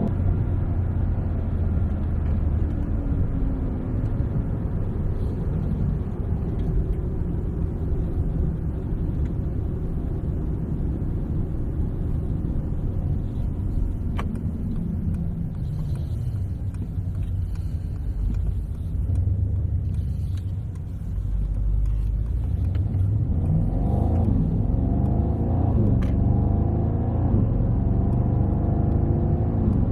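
Mercedes-AMG GT 63's twin-turbo V8 engine running under way over steady road rumble. The engine note sinks in pitch as the car slows around the middle. Near the end it rises in several climbing sweeps as the car accelerates up through the gears.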